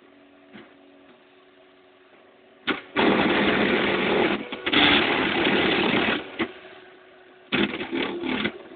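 Small 3D printer running a test print. A faint steady motor hum, then a click about two and a half seconds in and a loud stretch of buzzing, rattling motor noise lasting about three seconds. Shorter bursts of the same noise come near the end.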